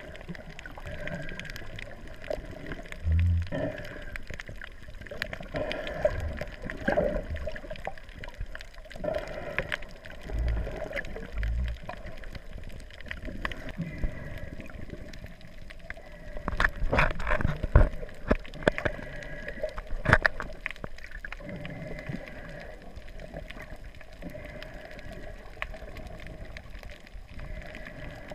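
Underwater sound picked up by a GoPro HERO3 Black in its waterproof housing: muffled water movement, with a few low thumps and a cluster of sharp clicks about halfway through.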